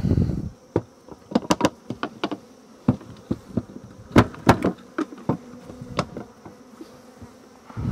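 Sharp, irregular wooden knocks and clunks as a plywood bee-vacuum box is handled and lifted on a beehive's wooden lid, over a faint steady hum of honey bees. There is a dull rumbling bump at the very start.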